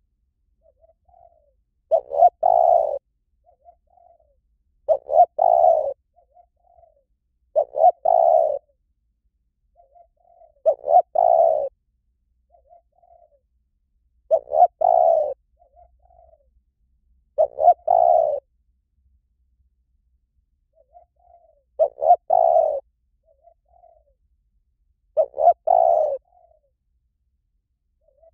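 A dove cooing the same phrase eight times, about every three seconds: a faint short note, then a loud coo of about a second, and a short trailing note.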